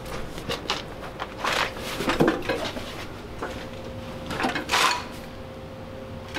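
Rummaging through a pile of old car parts: tyres and metal pieces being shoved aside, with scattered knocks and two louder scraping clatters, about two seconds in and again near five seconds.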